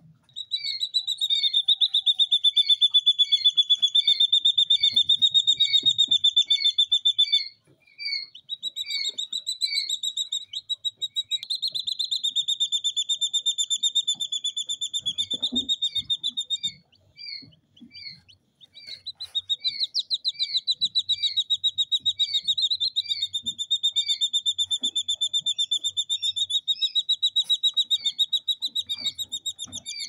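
Two-day-old jungle bush quail chicks calling: a high-pitched rapid trill held for several seconds at a time and broken off twice, with short downward-slurred peeps repeating about twice a second over it.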